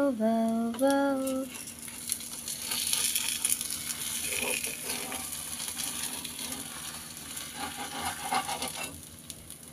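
Semolina chilla batter sizzling on a hot griddle (tawa) as it fries, a fine hiss that thins out near the end. A voice is briefly heard at the start.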